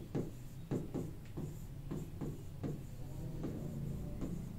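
Writing by hand on a board: a run of short, irregular strokes, several a second, thinning out after about two and a half seconds.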